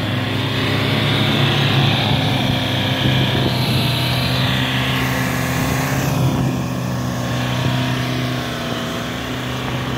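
Toyota Hilux pickup's engine running steadily under load as it ploughs through deep snow, with a hiss of snow thrown up by the spinning tyres.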